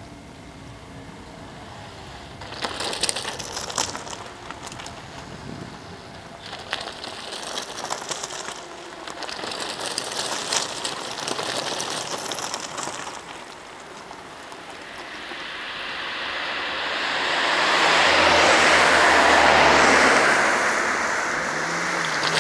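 Crunching and clicking on loose roadside gravel, then a car passing on the asphalt road, its tyre and engine noise swelling to a peak about two-thirds of the way in and easing off near the end.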